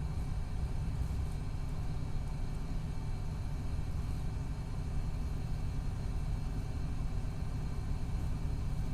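Steady low rumble of an MCI D4500CT coach running, from its Cummins ISX12 diesel and the road. The bus's Allison B500R transmission is in its last stages.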